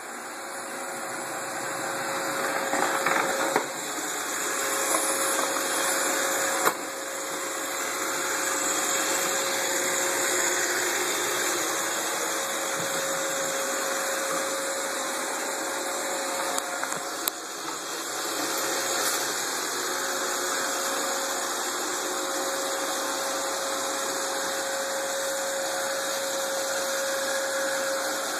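Roomba robot vacuum running: a steady motor-and-suction noise with a constant whine, broken by a few sharp knocks.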